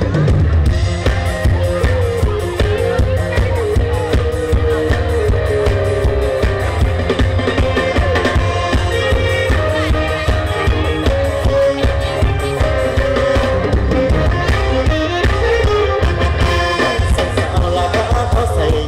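Live band music from a mor lam stage show, played loud through the stage sound system: a steady, heavy drum and bass beat under a wavering lead melody line.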